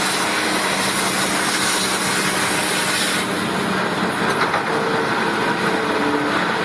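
Mining excavator loading a Cat 793F haul truck: heavy diesel engines running with a steady hum under a loud, gritty rush of rock and dirt, which eases about three seconds in.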